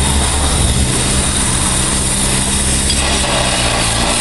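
Portable fire pump's engine running steadily at a constant speed, with an even hiss over it.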